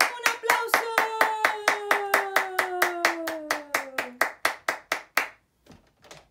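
Bare hands clapping quick applause, about five claps a second, dying away about five seconds in. Under the first four seconds a woman's voice holds one long call that slides down in pitch.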